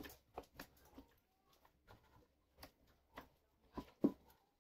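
A spoon stirring chicken pieces in gravy in a cooking pot, making faint, irregular clicks and scrapes against the pot, about a dozen in all. The loudest tap is at the very start, with two more near the end.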